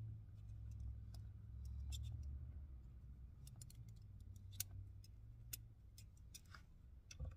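Faint, scattered small clicks and handling noise from hands working a stripped wire end with a small tool, over a low steady hum.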